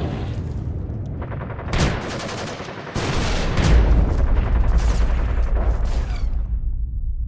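Battle sound effects: scattered gunshots, then rapid bursts of automatic gunfire over a deep rumble. The shots die away about six seconds in while the low rumble carries on.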